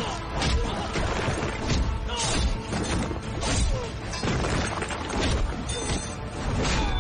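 Action-film fight-scene soundtrack: music under a rapid string of crashes and impact hits.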